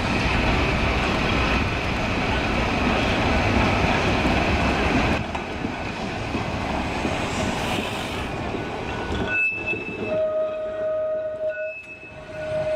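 Blackpool open-top Boat tram running along street track: a rolling rumble of wheels on rail with a steady high squeal. After about nine seconds it turns quieter, with a few steady held tones.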